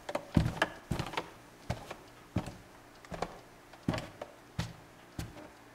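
Slow footsteps of hard-soled dress shoes on a wooden plank floor, a sharp knock at each step, about three steps every two seconds.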